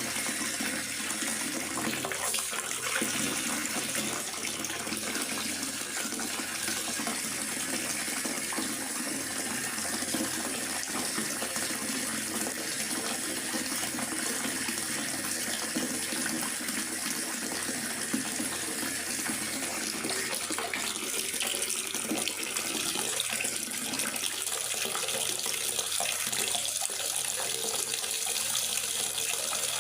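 Steady rain falling in a forest, an even, unbroken hiss of water.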